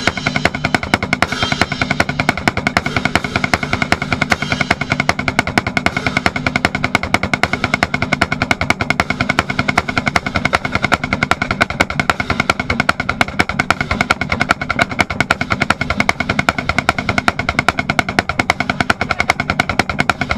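Marching band playing, with a snare drum close by beating a fast, steady run of strokes over held brass chords.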